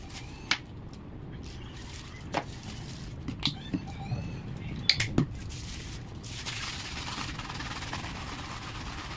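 Crinkling and rustling of a plastic piping bag being handled and squeezed, with a few sharp clicks in the first half and a steadier rustle near the end.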